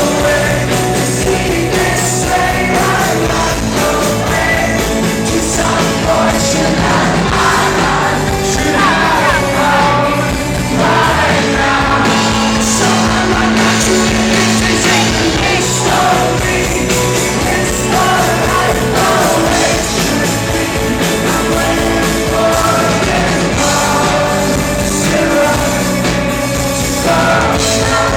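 Rock band playing live, with a sung lead vocal over the band.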